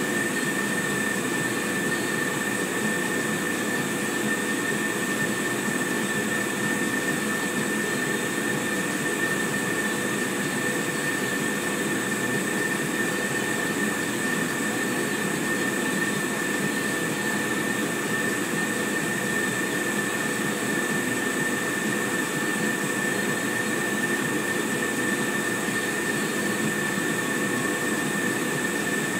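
Xenetech XLT laser engraver running while it engraves: a steady machine whirr with a constant high whine that does not change.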